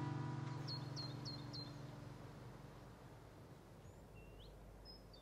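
The last strummed chord of an acoustic guitar rings out and fades away over the first couple of seconds. A small bird chirps four quick times about a second in and gives another rising call near the end.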